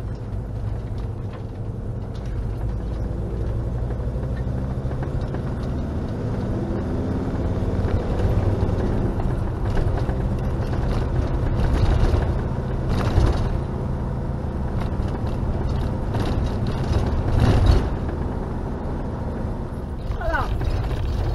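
Motorhome driving along a road, heard from inside the cab: steady engine and tyre rumble, swelling a little louder a few times in the middle.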